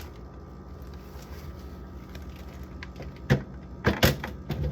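Food items and containers being handled while clearing out a refrigerator: a few sharp knocks and clatters between about three and four and a half seconds in, over a steady low hum.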